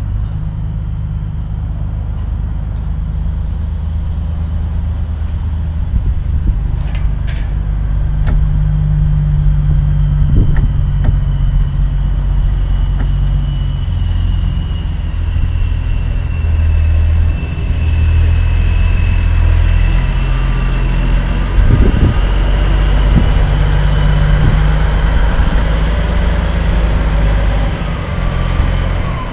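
Diesel engine of a long-nose semi-tractor running at low revs as it pulls a curtain-side trailer slowly past, a steady low rumble with a faint high whine over it and a few light knocks.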